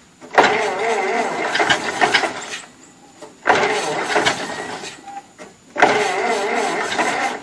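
A cold engine being cranked over in three attempts of about two seconds each, with short pauses between, not yet catching.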